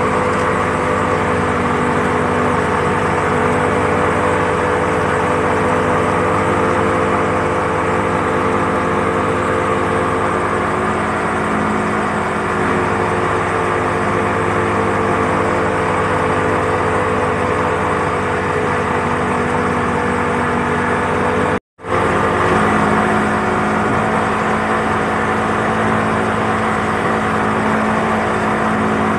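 Speedboat engine running steadily at speed while towing a banana boat, over the continuous rush of its churning wake. The sound cuts out completely for a moment about three-quarters of the way through.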